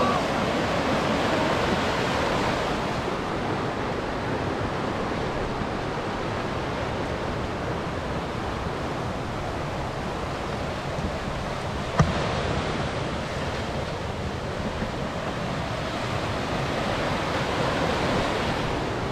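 Swollen, fast-flowing river water rushing in white-water rapids: a steady, even noise, a little quieter in the middle of the stretch. One sharp knock sounds about twelve seconds in.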